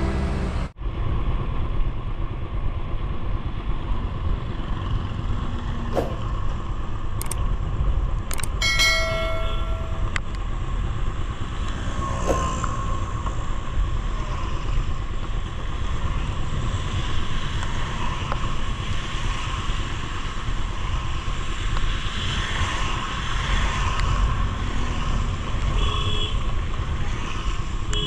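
Ride noise from a motorcycle on a wet road in the rain: steady wind and tyre noise with the engine underneath. A vehicle horn sounds briefly about nine seconds in.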